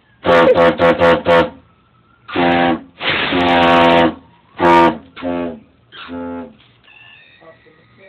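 Homemade train horn blowing in bursts: about five quick toots in the first second and a half, then longer blasts, the longest about a second, then a few shorter, weaker ones.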